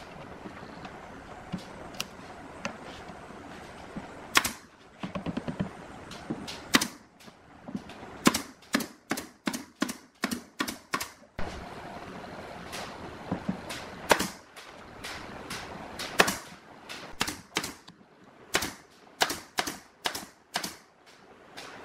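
Pneumatic nail gun shooting brads into a plywood speaker cabinet: sharp shots in irregular runs, several in quick succession.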